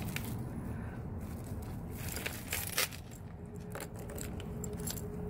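Costume jewelry clinking and rattling as hands sort through a pile of metal chains and beads: quiet, scattered small clicks. A faint steady tone comes in about three seconds in.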